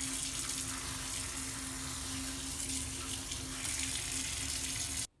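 Running water washing a dusty split-AC air filter: a steady splashing hiss that cuts off suddenly near the end.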